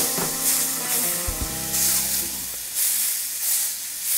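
Steak searing in butter in a hot cast-iron skillet, sizzling and hissing.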